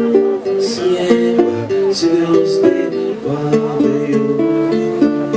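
Acoustic guitar fingerpicked in a continuous pattern of ringing notes, accompanying a man singing a lullaby.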